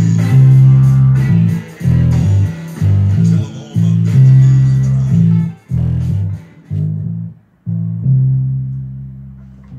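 Electric bass guitar plucked fingerstyle, playing a line of separate low notes with short breaks between them. The last note, about eight seconds in, is left to ring and fades away.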